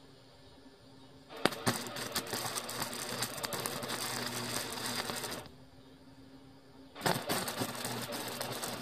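Flux-core wire-feed welder arc crackling in two runs, the first about four seconds long starting a second and a half in, the second starting about seven seconds in; each run opens with sharp pops as the arc strikes.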